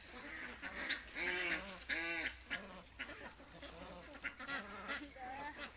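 A group of ducks quacking, a run of short calls overlapping one another, loudest between about one and two seconds in.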